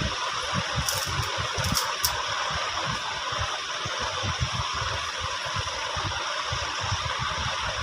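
Steady hiss of background noise with an uneven low rumble, and a few light clicks about one and two seconds in.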